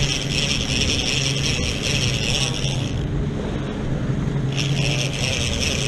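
Big-game trolling reel's drag buzzing steadily as a wahoo pulls line off. It breaks off about three seconds in for a second and a half, then starts again. The boat's engine hums steadily underneath.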